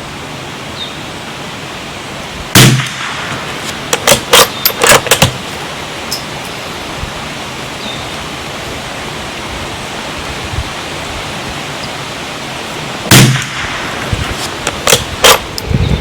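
Two shots from a Bergara BMR .22 LR bolt-action rifle, about ten seconds apart, each followed a second or two later by a quick run of sharp clicks as the bolt is worked to chamber the next round. A steady wind rush runs underneath.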